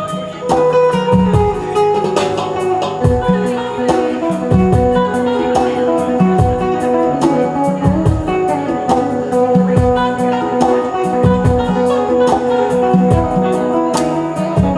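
Live band playing an instrumental stretch of a reggae song: guitar over a repeating bass line and a steady drum beat.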